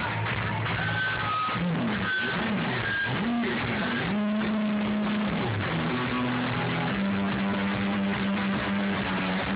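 Live indie rock band playing: a run of low sliding notes, then long held low notes from about four seconds in, over a dense wash of the band.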